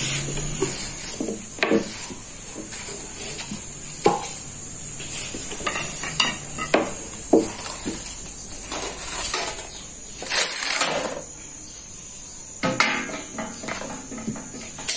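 Scattered knocks, taps and rustles as a baked yufka flatbread is lifted off a hot steel sac griddle with a long wooden stick and laid on a stack of bread, with a longer rustle about ten seconds in.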